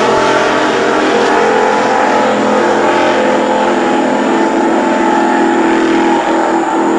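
Racing boat's engine running loud and steady, its pitch holding nearly level throughout.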